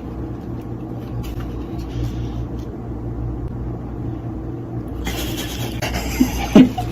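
A steady low rumble. About five seconds in, hiss joins it in the higher frequencies.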